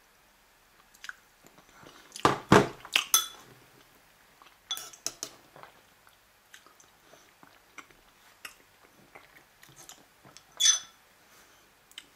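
A spoon scraping and clinking against a bowl of baked beans, sausage and omelette as spoonfuls are scooped, loudest about two to three seconds in, with quiet chewing between.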